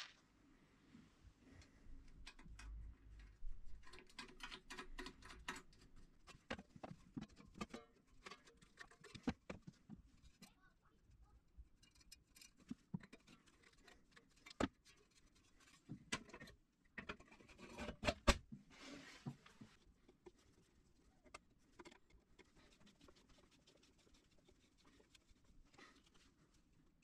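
Quiet clicks, taps and light clatter of small screws, a screwdriver and a thin perforated sheet-metal cover being handled and fitted to a battery charger, with a louder cluster of knocks about eighteen seconds in.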